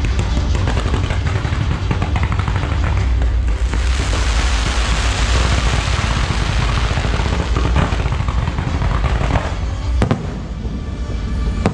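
Fireworks going off, with dense crackling from about four to nine seconds in and two sharp bangs near the end. Music with a steady bass plays underneath.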